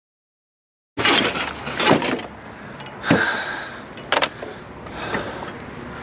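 Clattering and crunching of debris in a dumpster, starting abruptly, with several sharp knocks and crackles over the first few seconds, then a steady rustle.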